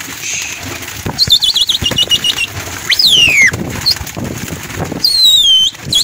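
Domestic pigeons flapping their wings, with several loud high whistles over them: a quick warbling one about a second in, then two long falling ones.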